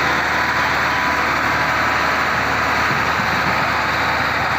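Tractor diesel engine running steadily at a loud, even level, with no revving changes.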